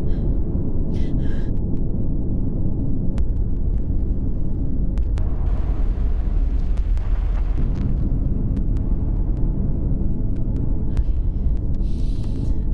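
Steady low rumble of a car's engine and tyres as heard inside the cabin while driving, with a louder hiss for a couple of seconds in the middle.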